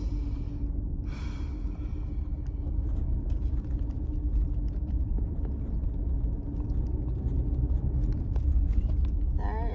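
Toyota 4Runner cabin noise while driving slowly: a steady deep rumble of engine and tyres with a constant hum and faint scattered ticks.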